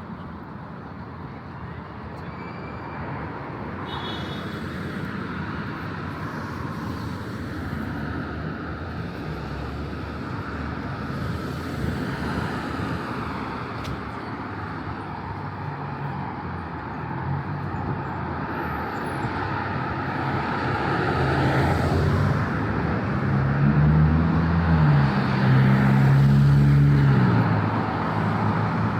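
Street traffic, a steady roar that builds as a motor vehicle draws close and passes, its engine loudest near the end.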